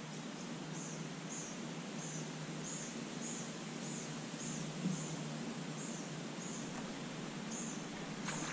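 A high, short chirp from a small animal, repeated about every half second, over a faint low hum.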